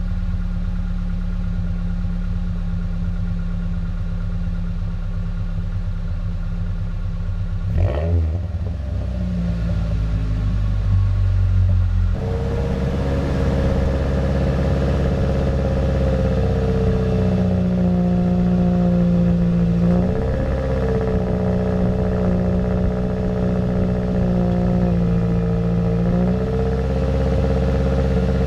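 Ford Ranger 2.3 four-cylinder engine idling steadily at the tailpipe, with one quick rev about eight seconds in. About twelve seconds in the sound cuts to a different recording of the tailpipe idling, with a couple of small throttle blips.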